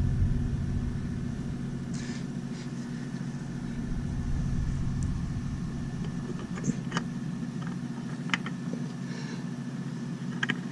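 Steady low hum of a vehicle engine in the background, with a deeper rumble that fades over the first few seconds. A few light clicks and taps sound now and then.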